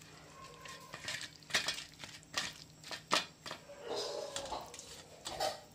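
Hand mixing food in steel bowls, with several sharp clinks and knocks of the steel bowls, about one every second through the middle.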